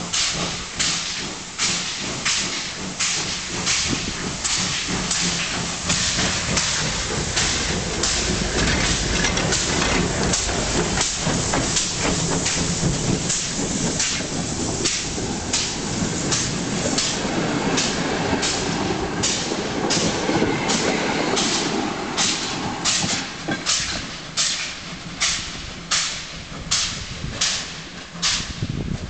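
Pt47 steam locomotive chuffing steadily at about two exhaust beats a second as it pulls its passenger train past. Through the middle stretch the carriages' wheels add a dense rumble and clatter over the track, and near the end the chuffing again stands out alone as the train pulls away.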